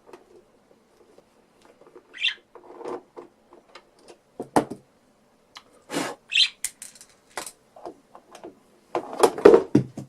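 Screwdriver work on a plastic synthesizer case: scattered clicks and knocks as the case screws are undone, with a couple of short high squeaks and a busier spell of knocking near the end.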